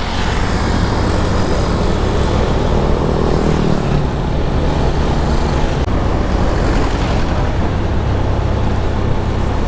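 Honda Genio 110 cc scooter riding at road speed: a steady rush of wind noise over the engine and road sound, with no breaks or sudden events.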